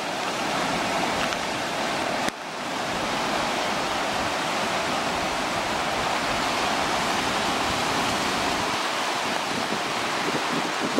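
Steady rushing roar of fast-flowing floodwater in a flooded creek, with one sharp click and a brief dip in the sound about two seconds in.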